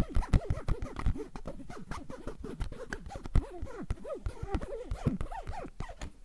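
Rapid ASMR tapping and scratching, a dense run of quick clicks, put through an added audio effect that bends their pitch up and down.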